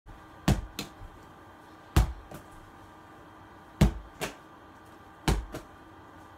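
A small ball thrown against a room wall four times, about every one and a half seconds. Each sharp knock is followed a fraction of a second later by a softer second knock as the ball is caught.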